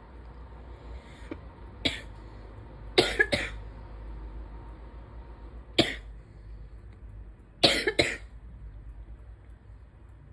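A person coughing in short, sharp bursts, some of them quick double coughs, about six in all. The coughing comes from a tight chest during an allergy-triggered asthma flare.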